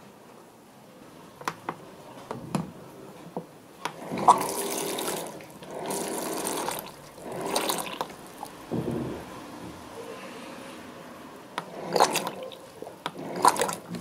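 Hot water from an electric hot water dispenser pouring into a ceramic bowl in several separate spurts, after a few light clicks.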